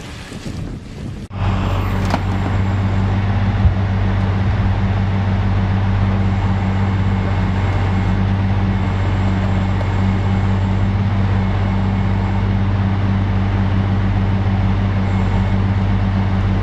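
Wind-like rushing noise, then about a second in an engine starts sounding: a heavy vehicle or machine engine running steadily with a low, even drone.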